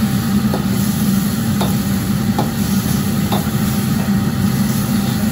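Metal ladle stirring and scraping a stir-fry in a carbon-steel wok, a stroke about once a second, with the food sizzling. Under it runs the steady low hum of the commercial wok range.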